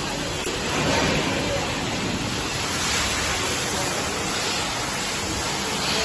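Industrial baking tray washing machine running, giving a steady rushing hiss.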